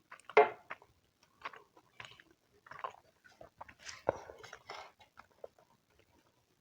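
Close-miked eating sounds: a person biting and chewing food in irregular bursts, the loudest about half a second in and again around four seconds.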